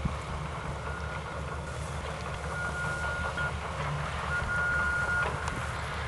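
Steady low rumble of a running vehicle engine, with a high single-pitched beep that sounds about three times, each time for nearly a second.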